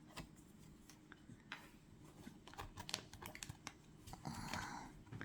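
Oracle cards being handled, giving faint, scattered clicks and taps, with a soft rustle about four seconds in.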